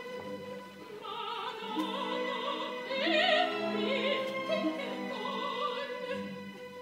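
Opera music: a singing voice with wide vibrato over sustained orchestral chords, swelling loudest about three seconds in.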